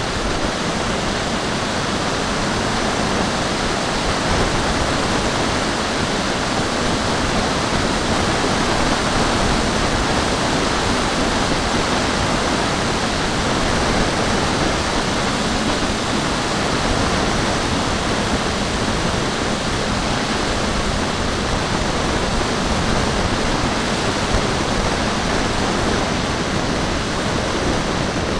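Steady, loud rush of wind buffeting the microphone of a small camera carried aloft in flight, an even hiss with no distinct tone or beat.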